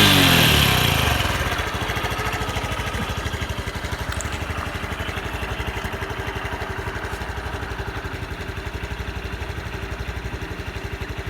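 Honda Super Cub 110 PRO's single-cylinder four-stroke engine settling down from a rev over the first second or so, then idling steadily with an even beat. The seller describes the engine as running well with no abnormal noises.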